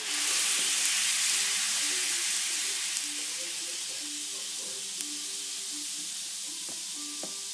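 Ice cubes and their meltwater sizzling and hissing on a hot frying pan. The sizzle comes in suddenly and loudly at the start, then eases off over a few seconds to a steadier hiss, with a faint tick or two.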